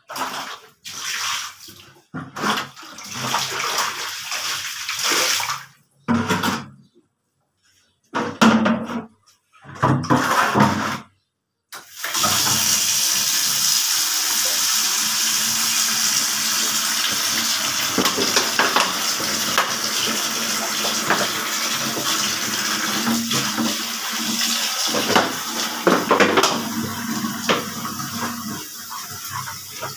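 Stiff brush scrubbing wet laundry on a concrete floor in short bouts, then a steady rush of running water from about twelve seconds in, with scrubbing strokes over it.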